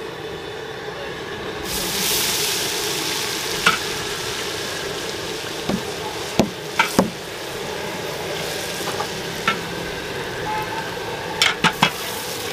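Chopped onions tipped into hot oil and ghee in a large aluminium pot, setting off a loud sizzle that starts suddenly about two seconds in and keeps on. A long metal ladle stirs them, with several sharp scrapes and knocks against the pot.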